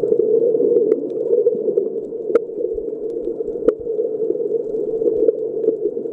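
Underwater ambience heard through a submerged waterproof camera's body: a steady, muffled rushing noise with a few sharp clicks, the two loudest near the middle.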